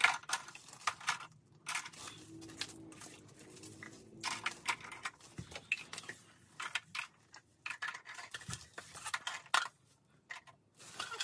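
Plastic toy dishes and play food clattering in irregular small clicks and knocks as they are picked up and set down on a plastic toy kitchen set.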